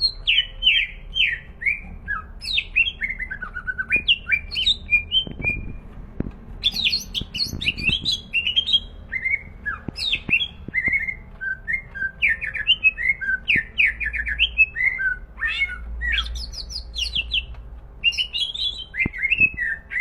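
Cucak ijo (green leafbird) singing non-stop in full, energetic song: a long, varied stream of quick whistled notes, sweeps and chattering trills with hardly a pause.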